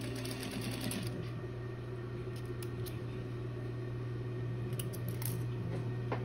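Juki industrial sewing machine stitching rapidly through stiff mesh, stopping about a second in. Its motor then keeps up a steady low hum, with a few faint clicks as the work is handled.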